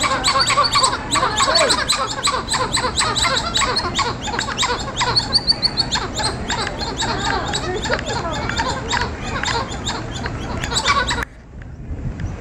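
Gray titi monkeys calling to one another in a rapid, busy chatter of high chirps and squeaks, which breaks off abruptly near the end.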